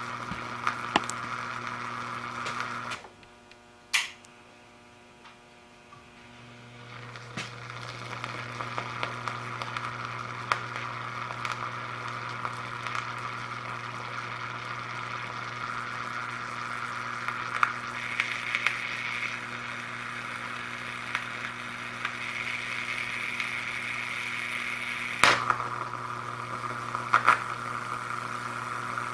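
Salt water boiling around a submerged CRT electron gun as mains current flows through it: a steady sizzle with small crackles over a low mains hum. It cuts out about three seconds in, with a single click a second later, then builds back up, and two sharp pops go off near the end.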